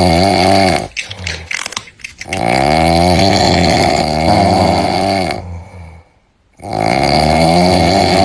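Comic snoring sound effect: loud, drawn-out snores with a wobbling, bending pitch. One ends about a second in, a long one starts at about two seconds, and another starts near the end.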